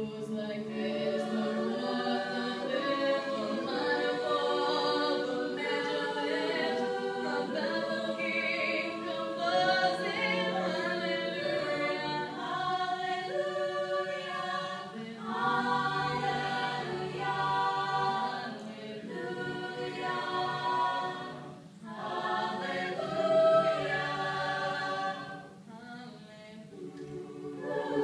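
Mixed-voice a cappella group singing: a woman's solo voice through a microphone over held backing chords from the ensemble, with brief dips between phrases.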